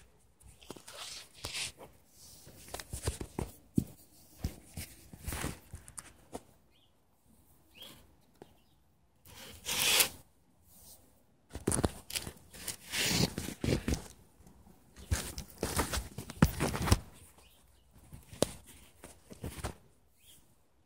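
Handling noise: a hand and arm rubbing and brushing against a phone's microphone, in irregular scraping and rustling bursts with short gaps between them.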